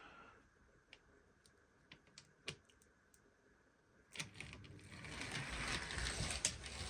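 A few light clicks, then about four seconds in a Bachmann B1 model locomotive chassis starts running on the track, its small electric motor and gears whirring and clicking and growing louder. The chassis is running again on its freshly repaired axle.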